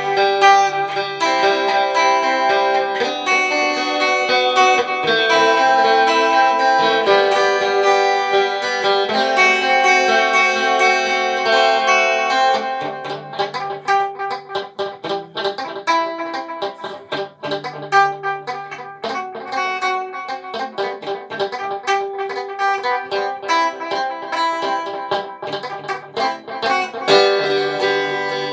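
Instrumental break of a pop song, led by guitar over a bass line. About halfway through, the full held chords give way to sparser picked notes.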